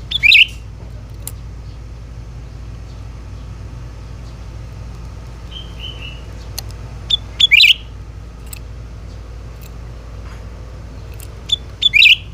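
Cucak ranting bird calling: three loud, short, sharp calls, at the start, about seven seconds later and again near the end, each led by a brief note. A softer phrase of three short falling notes comes in between. A steady low hum runs underneath.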